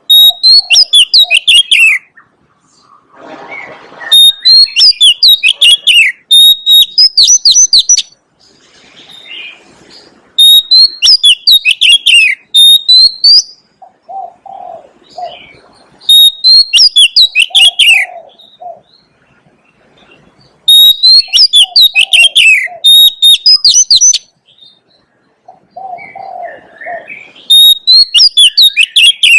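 Oriental magpie-robin singing: loud phrases of clear whistles and rapid, sharp notes, about six phrases each lasting two to four seconds, with short pauses between them that hold softer, lower notes.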